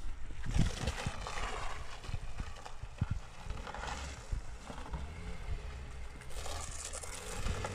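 Footsteps thudding unevenly on a muddy dirt track, over the low steady running of a Volkswagen car engine creeping along at low revs.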